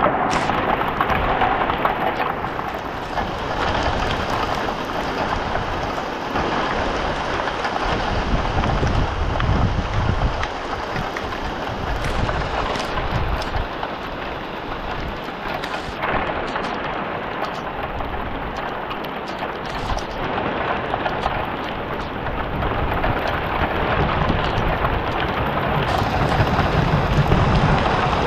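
Steady rain falling during a thunderstorm, with low rolls of thunder rumbling about a third of the way in and building again near the end.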